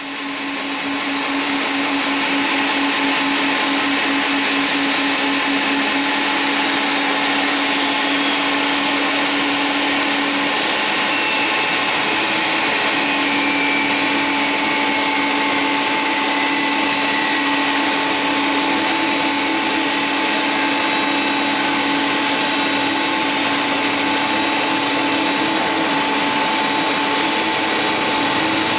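Jet aircraft engines running steadily: a loud, even rush of noise with several whining tones. Partway through, a higher tone slowly falls in pitch.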